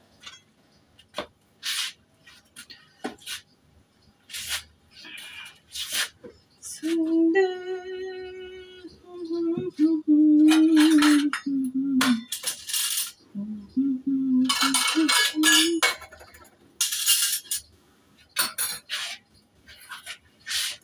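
Steel dishes and utensils clinking and knocking as food is handled at a kitchen counter. Midway a voice hums a few held notes, for about five seconds and then again for about two.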